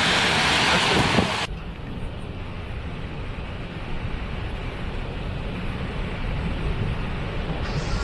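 Waterfall roar: a loud, hissing rush of falling water that cuts off about one and a half seconds in, giving way to a deeper, steady rumble of water pouring over the brink of a large waterfall.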